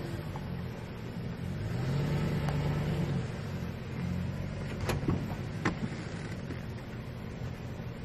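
Pickup truck engine running at low speed while reversing with a sawmill trailer, swelling briefly as it is given more throttle, with two sharp clanks about five seconds in.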